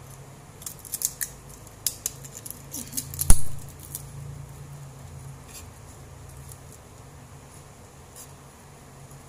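Dry, papery crackling and snapping of a garlic head being broken apart by hand into cloves, ending in one sharp knock about three seconds in, then only a few faint ticks. A low steady hum runs underneath.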